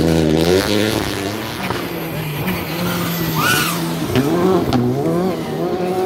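Rally car engines on a gravel stage: revs dropping as a car brakes into a hairpin, then revving back up as cars slide through the bend and accelerate away, with tyres skidding on the gravel.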